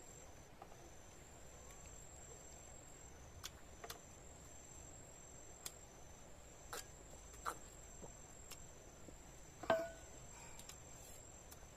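Insects, crickets by the sound, chirring steadily in a high, thin tone. A few soft clicks and taps of eating break in here and there, the loudest near the end.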